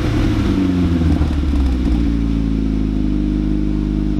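VW Lupo's swapped-in 1.8-litre 20-valve turbo four-cylinder, heard at its freshly fitted twin-tip exhaust, dropping back from a rev with an uneven, rough note. It then settles into a steady idle about two seconds in.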